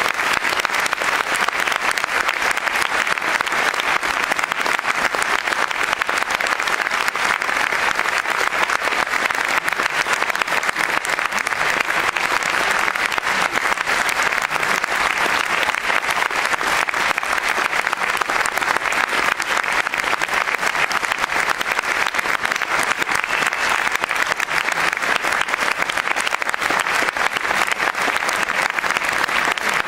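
A large audience applauding: dense, steady clapping that keeps going without a break.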